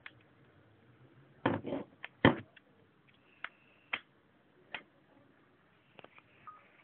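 A scatter of short, sharp clicks and knocks, the loudest two about a second and a half and two seconds in, over the faint low hum of a ThinkPad X300 laptop's cooling fan.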